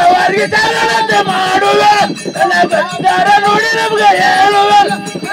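A man singing a dollina pada, a Kannada folk song, through a microphone and PA, in long held notes that break off every second or so. Small metal cymbals clink along.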